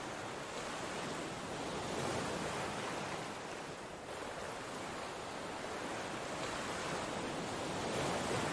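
Steady rush of churning water from a boat's wake under a wakeboard, an even hiss with no pauses.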